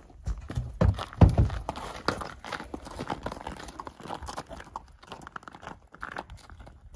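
A saddled horse stepping down out of a stock trailer, its hooves thudding heavily on the trailer floor about a second in, then walking off across packed snow with irregular crunching hoof steps.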